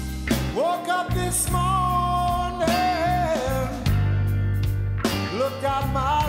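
Background music: a slow rock song with a gliding melody line over a steady bass.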